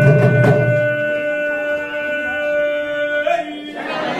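Conch shell blown in one long steady note, with drum beats under it for the first second; near the end the note breaks upward and stops.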